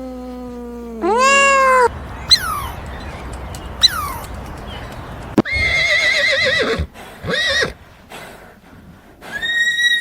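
Horses whinnying: a series of separate calls, some falling sharply in pitch and others long and quavering, with abrupt cuts between them.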